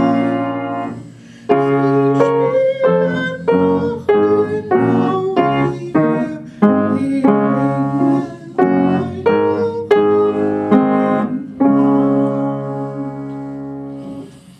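Upright piano played slowly in full chords, one struck roughly every half second to second, each ringing and decaying, with a short break about a second in. The tune ends on a long held chord that dies away near the end.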